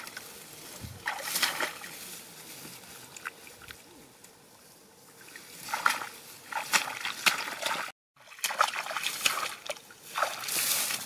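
Splashing and sloshing in shallow muddy water among grass as someone wades through it, in irregular bursts.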